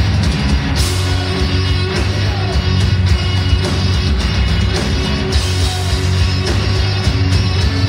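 Heavy metal played live on amplified cellos, driven by a rock drum kit, loud and dense.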